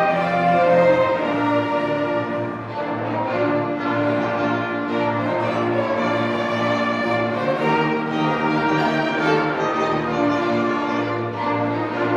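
Instrumental music led by violin, with lower bowed strings underneath, playing long held notes that change every second or two.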